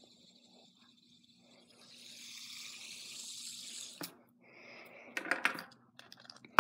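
A fidget spinner whirring with a steady hiss for about two seconds, stopped suddenly with a click. This is followed by a few light plastic clicks and rattles as it is handled.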